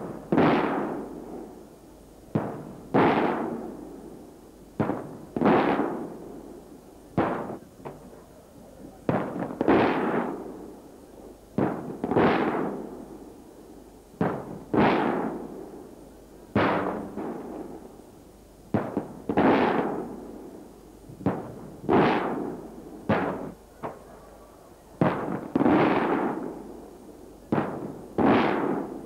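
Traditional Maltese aerial firework shells bursting overhead in quick succession. Sharp bangs come every second or two, many in close pairs, and each one trails off in a long rolling echo.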